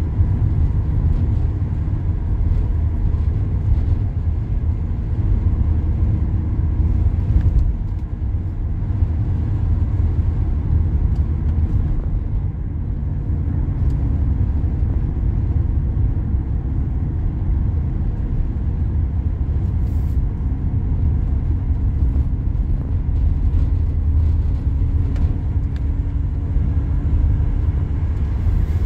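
Car engine and tyre road noise heard from inside a moving car: a steady low rumble, with a faint engine hum that rises slowly in pitch during the second half.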